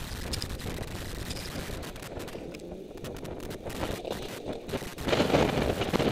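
Snowboard sliding and scraping over snow, with crackling and wind buffeting the camera's microphone; the scraping rush gets louder about five seconds in.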